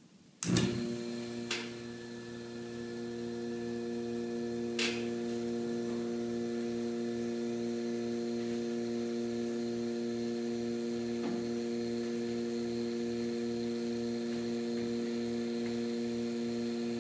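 Small electric vacuum pump switching on about half a second in and running with a steady hum as it pumps the air out of the coin-and-feather tube, growing a little louder over the first few seconds before holding level.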